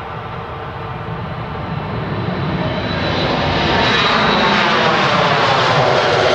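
Boeing 737-400's twin CFM56-3 turbofan engines at takeoff power as the jet rolls down the runway, rotates and lifts off. The roar grows steadily louder, with a thin high whine over it.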